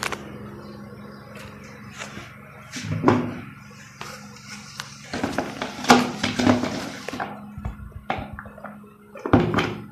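Plastic knocks and clicks from a manual food chopper's bowl as tomatoes are pressed down inside it and the lid is set on, with a run of quick clicks a few seconds in and a louder clunk near the end.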